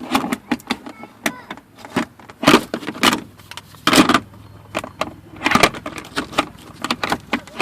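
Handling noise close to the microphone: a run of sharp clicks, knocks and rattles, with several louder scraping rustles, as things are picked up and set down.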